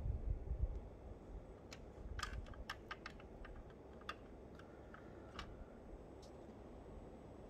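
Small clicks and taps of fingers handling a 1:18 die-cast model Lamborghini Diablo SV and opening its front hood. There are dull handling bumps at first, then an irregular run of light clicks starting about two seconds in, with a few more further apart later on.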